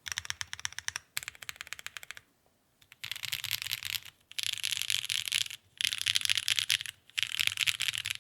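Mechanical keyboard with Kailh BCP switches on a carbon fibre plate and GMK ABS keycaps being typed on in quick bursts of clacky keystrokes, with a pause about two seconds in and faster, louder runs of typing after it.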